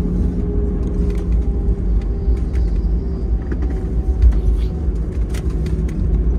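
Cabin noise inside an Airbus A320-214 rolling on the ground after landing: a steady, heavy low rumble with a few steady hum tones, and scattered light clicks and rattles.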